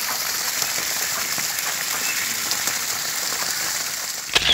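Steady splashing and spattering of water on the surface of a duck pond, an even hiss full of small crackles. A short loud bump near the end.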